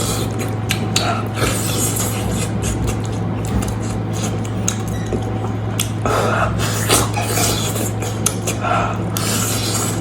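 Close-miked eating of lamb meat and beef trotters: wet chewing with many quick mouth clicks and smacks, over a steady low hum.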